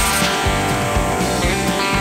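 Background music: electric guitar over a steady beat, about two beats a second.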